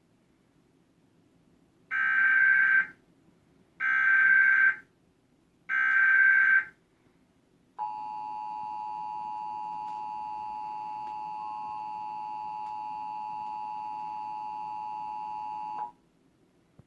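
Emergency Alert System Required Monthly Test: three SAME digital header data bursts, each about a second long and about two seconds apart. The two-tone EAS attention signal (853 and 960 Hz together) follows, held steady for about eight seconds before cutting off sharply.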